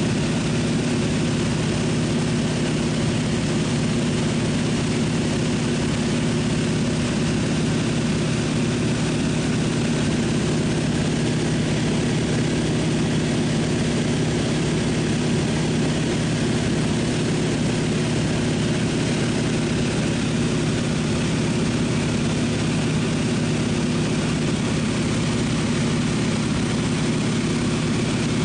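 Propeller seaplane's engine running steadily, heard inside the cabin: an even low drone with constant rushing air noise, unchanging throughout.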